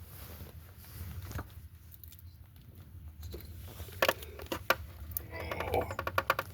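Handling noise from wiring work: a few sharp clicks about four seconds in, then a quick run of rapid ticks near the end, over a low steady hum.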